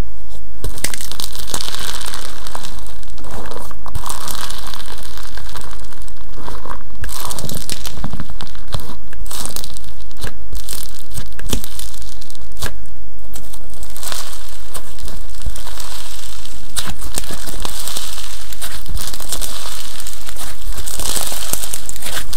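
Kokomo Slime's 'Frosted Popping Candy' crunchy slime being squeezed and pressed by hand, making a dense run of crackles and crinkling pops with brief lulls now and then.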